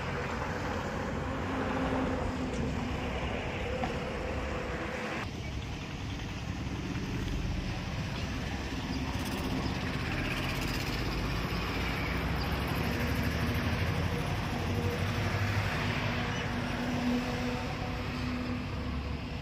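A vehicle engine idling steadily, with a low, even hum. The sound changes abruptly about five seconds in, then carries on steady.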